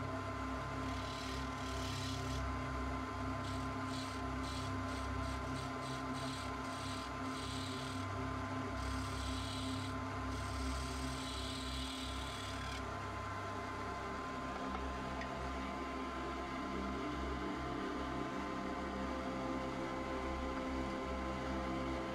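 Wood lathe running with a steady hum while a turning tool cuts the rim of a spinning redgum bowl, making a hissing scrape in repeated short passes. The cutting stops about halfway through, leaving only the lathe's hum.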